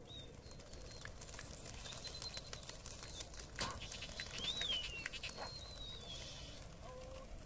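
Pigeon wings flapping in a quick patter of claps, with thin, high whistle-like calls over it.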